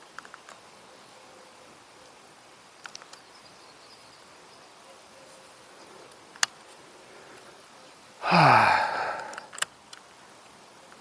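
A man's loud sigh, falling in pitch, about eight seconds in, amid a few light clicks.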